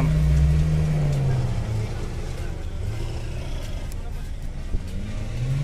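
An off-road SUV engine held at high revs, then dropping off about a second in, and revving up again near the end.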